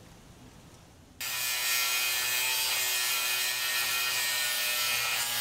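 Power grinder starting suddenly about a second in and grinding steadily into a seized bolt on the Land Cruiser's bumper that keeps spinning instead of unscrewing: a loud, harsh hiss with a steady whine.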